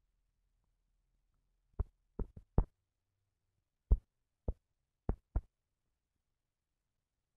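On-screen phone keyboard key clicks: about eight short, sharp ticks as a search term is typed, four close together about two seconds in, then four more spread over the next couple of seconds.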